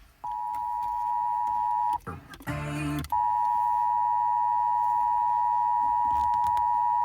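Emergency Alert System attention signal played over FM radio: a steady two-tone alert tone. It breaks off just before two seconds in for about a second of other radio audio, then resumes and holds.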